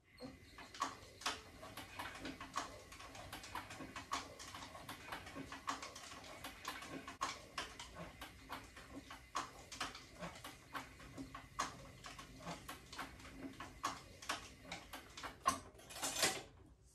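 Cowboy CB-4500 heavy-duty leather sewing machine stitching thick leather with heavy thread. A low steady hum runs under a rhythmic run of clicks, a few a second, as the needle cycles. It starts at once and stops just before the end.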